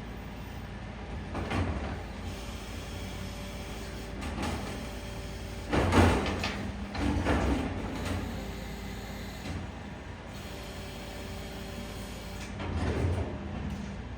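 Heavy machinery running with a steady low hum, broken by several louder rushing, scraping surges, the loudest about six seconds in.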